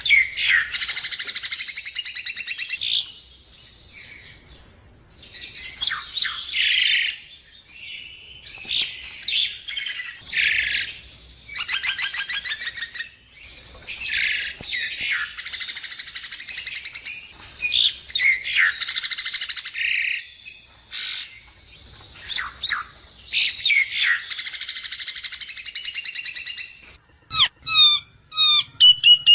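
Javan myna (jalak kebo) song: long runs of harsh chattering and rapid trills mixed with whistled notes, broken by short pauses, and ending in a quick series of short sweeping whistles.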